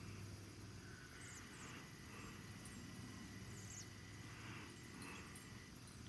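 Quiet rural outdoor ambience: faint steady background noise with a few brief high chirps and a faint held tone in the middle.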